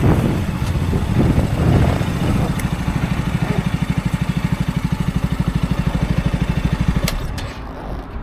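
KTM Duke 125's single-cylinder engine through an Akrapovic exhaust, settling from uneven running into a steady idle with an even low pulse. It stops abruptly with a click about seven seconds in.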